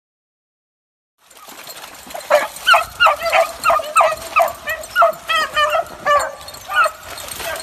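Beagles baying in a quick run of high yelps, two or three a second, starting a second or two in and stopping near the end. It is the hunting cry of rabbit beagles working a track.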